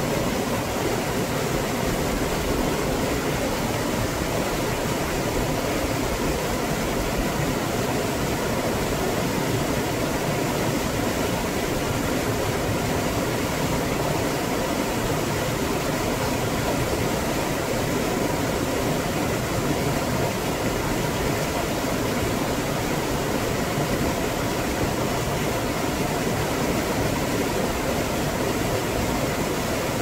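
Small waterfall pouring down a rock chute into a pool: a steady, unbroken rush of falling and splashing water.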